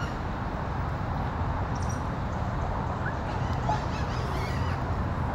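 Steady low outdoor rumble with a few faint, short, high-pitched animal calls about three to four and a half seconds in.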